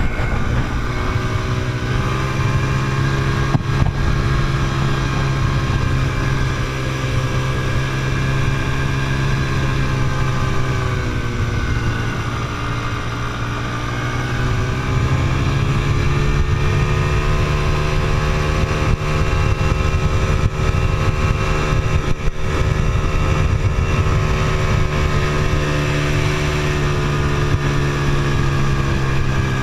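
Quad bike engine running under way across sand, heard from the rider's seat. The engine note drops about a third of the way in and climbs back up a few seconds later, then holds steady.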